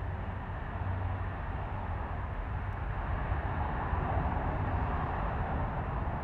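Dash 8 turboprop taxiing past, its turboprop engines and propellers running steadily with a low hum, getting slightly louder about four seconds in as it draws nearest.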